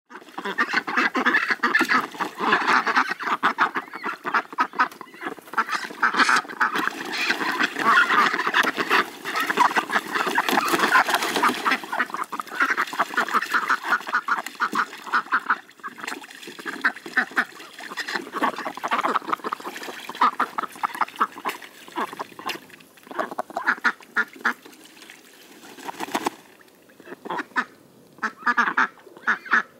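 A group of domestic ducks quacking rapidly, many calls overlapping. The quacking is loud and nearly continuous for the first half, then thins to scattered bursts.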